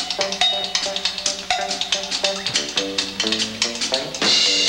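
Jazz number with a plucked bass line under a steady run of sharp stick or wood-block clicks; the bass notes climb step by step just before a loud cymbal crash about four seconds in.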